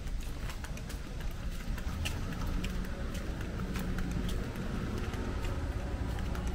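Footsteps on a concrete street, about two steps a second, over a steady low rumble.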